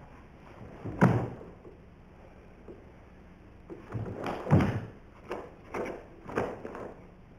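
Feet thudding on a wooden floor and the karate uniform snapping as a karateka moves through the Bassai kata: one heavy thud about a second in, then a run of thuds and sharper snaps from about four seconds in until near the end.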